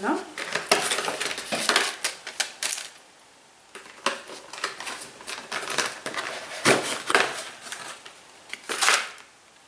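Cardboard and plastic pen packaging being pried and torn open by hand: irregular crackling, clicking and tearing, with a short pause about three seconds in.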